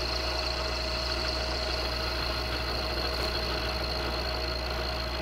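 Milling machine running with a 14 mm high-speed-steel end mill cutting dry into the cast-iron arch of a Wilton vise. It makes a steady hum with a constant high whine.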